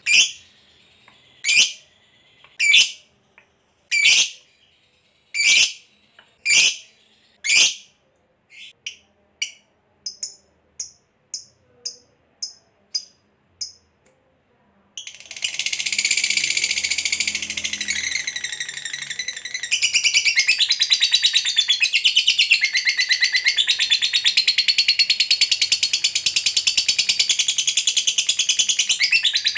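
Lovebird calling: seven sharp single chirps about a second apart, then softer, quicker chirps about twice a second. About halfway through it breaks into a long, continuous, fast chattering trill, the 'ngekek' song prized in fighter lovebirds, which grows louder about two-thirds of the way in.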